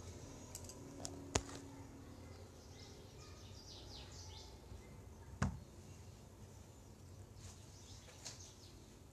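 Quiet background with faint high bird chirps and two sharp clicks, one about a second and a half in and one about midway.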